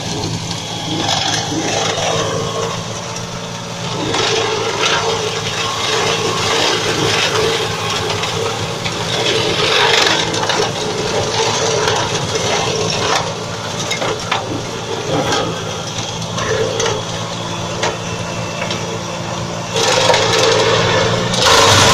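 Tehnos flail mulcher on an Antonio Carraro TRX 6400 tractor shredding dry grass and brush: the tractor engine runs steadily under load beneath a constant noisy churn of the flails, full of sharp snaps of stems being smashed. About twenty seconds in it gets louder as the mulcher bites into a shrub.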